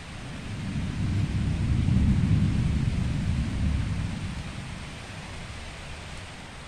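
Rolling thunder: a low rumble that swells for about two seconds, then dies away by about five seconds in, over the steady hiss of rain.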